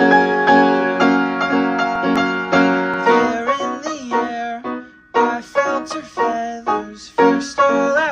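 Background music: piano-like keyboard chords struck in a steady pulse about twice a second. Past the middle they change to short, choppy chords.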